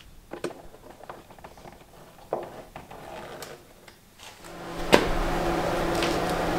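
Scattered light clicks and knocks of hands working at the underside of a car's plastic door trim panel. About two-thirds of the way through, a sharp click and then a steady hum take over.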